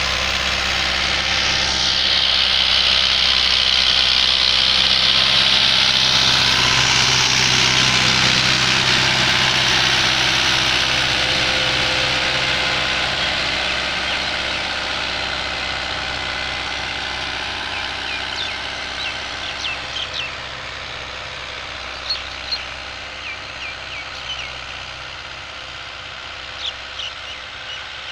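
FIAT 640 tractor's diesel engine running steadily under load as it pulls a tined cultivator through the soil, loudest in the first few seconds as it passes close by, then fading as it moves away. In the second half, short high bird chirps come through over the engine.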